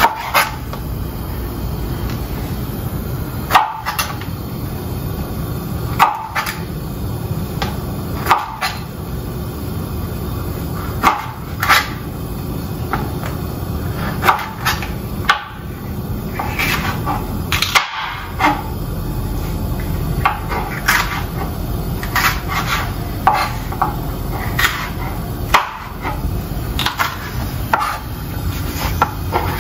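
Chef's knife slicing sweet peppers and knocking down onto a plastic cutting board, in single cuts about one to two seconds apart, over a steady low background hum.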